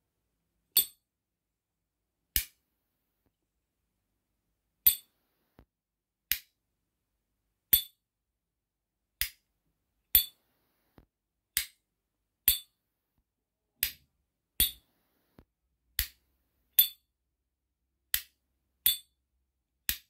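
Replica S.T. Dupont-style metal lighter's lid flicked open and snapped shut over and over, about sixteen sharp metallic clicks spaced a second or so apart. Every other click rings on with a high, bright ping.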